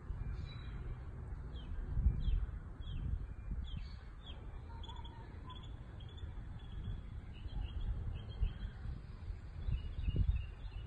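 Small birds chirping repeatedly with short, high notes, over a louder low rumble that swells about two seconds in and again near the end.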